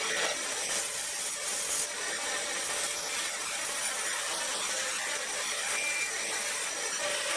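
A saw cutting through wood, with a steady rasping noise.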